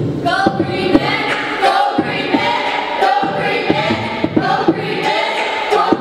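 A song with several voices singing together over music, with occasional sharp beats.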